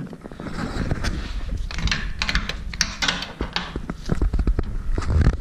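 Irregular clicks, taps and clunks of hand and tool handling around the engine, with low bumps under them, as a gloved hand reaches into the engine bay to turn the engine over by hand.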